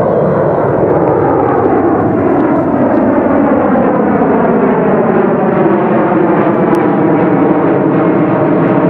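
Boeing 767-300ER's twin jet engines at take-off thrust: a loud, steady roar as the airliner passes low overhead in its climb, its tone sweeping slowly downward.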